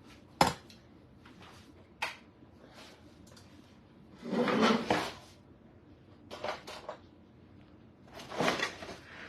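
Kitchen handling noises: a sharp click, a light knock, then a longer scraping clatter about four seconds in, and a few more short rattles, like a drawer or cupboard being worked and things being picked up and set down.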